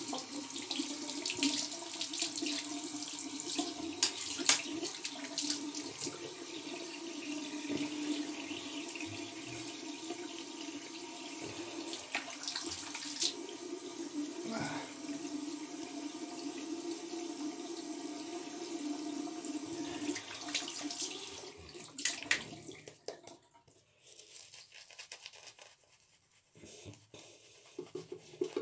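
Bathroom sink tap running steadily, with splashes as hands scoop water onto the face, shut off about 22 seconds in. Near the end comes the faint scratchy swish of a shaving brush working lather onto the beard.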